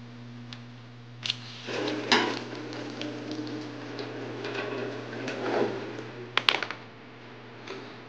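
Metal hand tools clattering and scraping as they are handled at a rolling tool cart and on the car's front end, with a few sharp clicks about six and a half seconds in. A steady low hum stops about a second and a half in.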